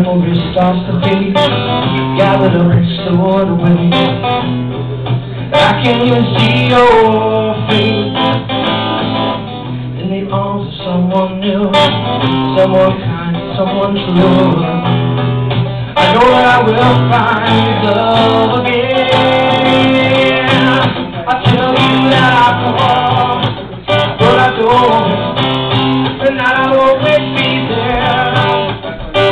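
A man singing while strumming an acoustic guitar: a live solo song with steady chords under the voice.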